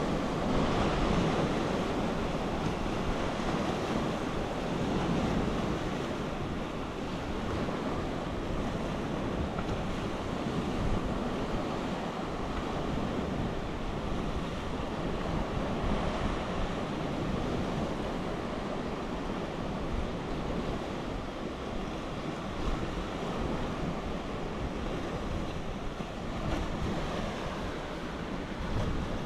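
Sea surf washing onto the shore in a steady, gently swelling rush, with wind buffeting the microphone.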